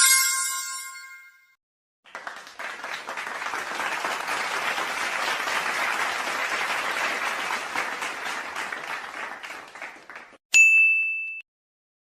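Sound-effect sequence: a bell-like ding that rings out over about a second and a half, then about eight seconds of applause, then a short, high ding near the end.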